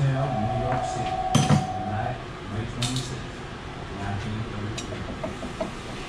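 Metal clinking and knocking as tools and brake parts are handled at a car's bare wheel hub, with two sharp metal strikes, about a second and a half in and near three seconds in. A steady tone sounds through the first two seconds.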